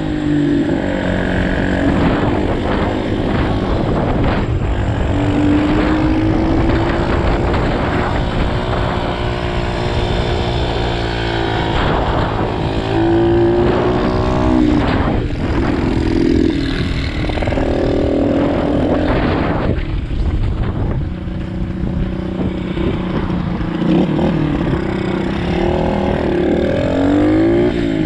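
SSR 125cc pit bike's small single-cylinder four-stroke engine under way, its pitch climbing repeatedly as the throttle is opened and dropping back each time it eases off, with a short lull about two-thirds of the way through.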